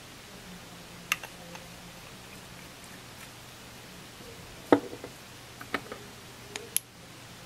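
A few small clicks and knocks of the resin bottle and tools being handled on the tying bench, the loudest a cluster a little past halfway and a last sharp click near the end, over a faint steady hum.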